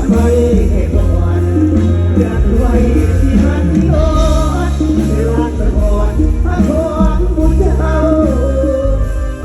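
Live Thai luk thung band music with a heavy, steady bass and a wavering melodic lead line, played between sung verses.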